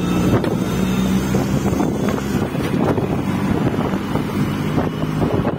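The engine of the vehicle carrying the camera runs with a steady low drone while it drives over a potholed highway. Wind buffets the microphone, and there are scattered short knocks and rattles.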